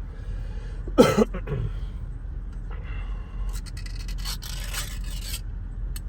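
A metal Spam can being opened: a sharp sound about a second in, then a couple of seconds of metal scraping, as of the lid being peeled back. The van's engine idles low underneath.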